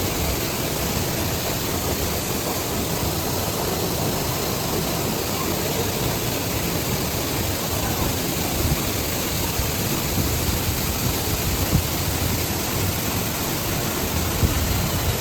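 Waterfall rushing as a steady, loud roar of falling water.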